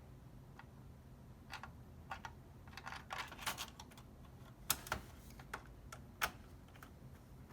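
Irregular small clicks and taps of a screwdriver and metal screws as the power supply's screws are reinstalled in a PS4 Slim, with a couple of sharper clicks in the second half.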